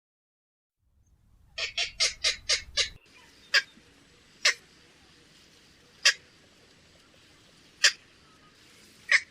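Heron-family bird calling. After a moment of silence there is a quick run of about six short, sharp calls, then single sharp calls every second or two.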